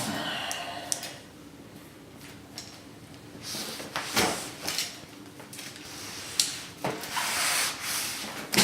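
Cardboard shipping package being handled and opened: irregular rubbing and scraping of cardboard and packing, with a few sharp clicks, in bursts that get busier in the second half.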